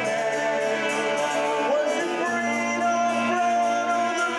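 A rock band playing live: acoustic and electric guitars, bass and drums, with a voice singing a melody over them.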